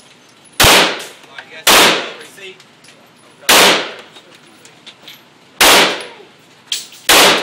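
Five single shots from a 9 mm Glock 19 pistol, fired at an uneven pace one to two seconds apart. Each shot is loud and echoes briefly off the walls of an indoor firing range.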